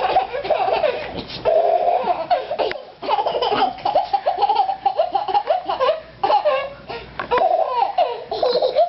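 A baby laughing hard in repeated bursts, with short breaks between the fits of laughter.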